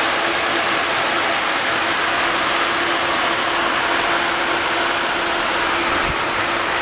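12-volt electric radiator fan running, a steady rush of air with a steady hum underneath; it makes a lot of noise.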